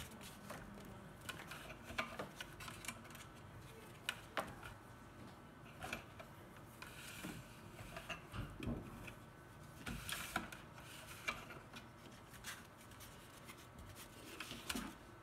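Scattered light clicks and rubbing as a transducer cable is wound by hand into the wire slots of a Humminbird Ice 35 fish finder's plastic mount and case.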